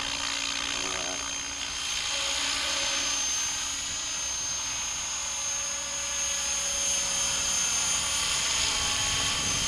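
Radio-controlled helicopter in flight, its motor and rotors giving a steady high whine.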